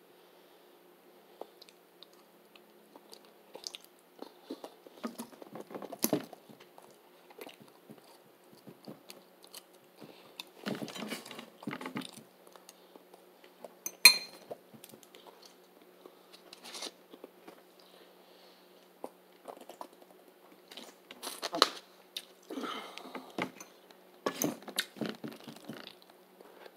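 A person chewing stuffed green bell pepper close to the microphone, in scattered bursts with pauses between. Two sharp clicks stand out, at about 6 and 14 seconds in.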